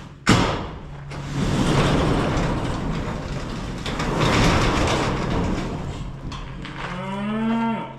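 Manually operated door, most likely a garage-style door without an opener, being pushed open by hand: a sharp knock as it starts, then several seconds of loud rolling noise as it travels.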